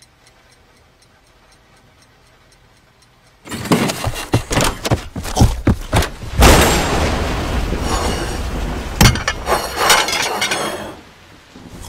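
Faint, evenly spaced ticking like a clock. About three and a half seconds in it gives way to a loud, dense run of clattering and crashing cartoon sound effects with many sharp knocks, which dies away near the end.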